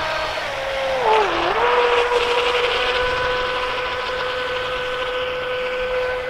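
WL Toys WL915 RC speedboat's brushless motor whining at full speed over a steady hiss. Its pitch dips briefly about a second in, then holds level.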